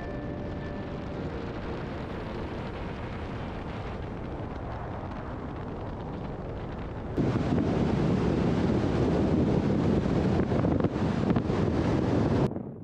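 Wind rushing over a microphone on the roof rack of a moving Toyota Land Cruiser FJ80, mixed with road noise. About seven seconds in it jumps suddenly louder into heavier wind buffeting, then drops off abruptly just before the end.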